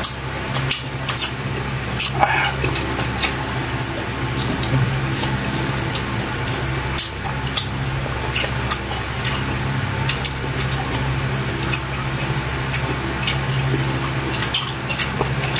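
Close-up mukbang eating sounds: wet lip smacks, sucking and chewing clicks from two people eating saucy octopus adobo with their fingers. Beneath them runs a steady low hum.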